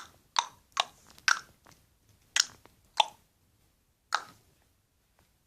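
A person's tongue clicks: the tongue is pressed to the roof of the mouth and snapped away, giving about seven sharp hollow pops at uneven intervals over the first four seconds.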